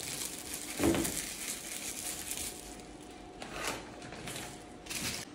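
A Rottweiler crunching and chewing a hard dog treat, in irregular crackly crunches.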